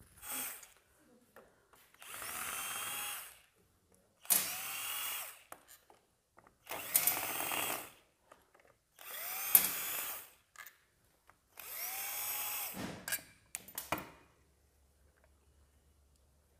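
Power drill-driver spinning out the clutch cover bolts on a Bajaj Pulsar engine, in five short runs of about a second each. Each run starts with a rising whine that levels off, with small clicks between the runs.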